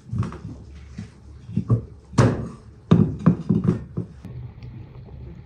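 Corn cobs being pushed and packed into large glass jars: a quick series of dull knocks and thuds as cobs hit the glass and each other, the loudest about two and three seconds in.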